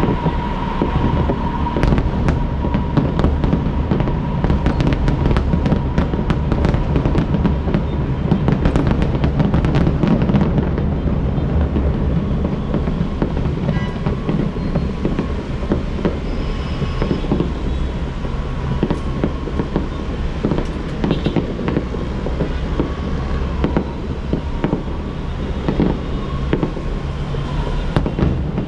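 Fireworks display: a rapid run of bangs and crackles for the first ten seconds or so, then scattered bursts, over a steady low rumble.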